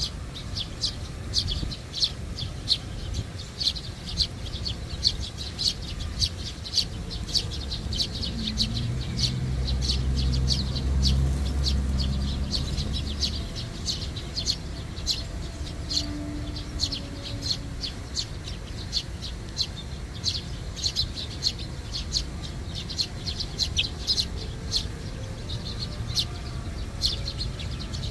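A flock of Eurasian tree sparrows chirping continually, short high chirps coming several times a second. A low rumble swells and fades about ten seconds in.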